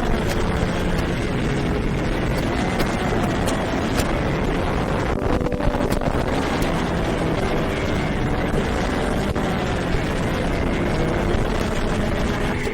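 FPV quadcopter's motors and propellers whining, the pitch rising and falling with throttle, under a steady rush of wind noise.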